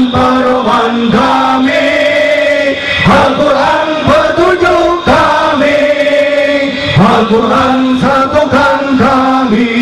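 A group of men chanting in unison into microphones over a loudspeaker system, in long held notes that break and change pitch every second or two.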